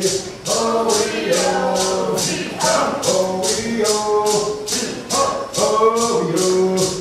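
Cherokee social-dance song: several voices chanting together over a rattle shaken in a steady beat, about two and a half strokes a second.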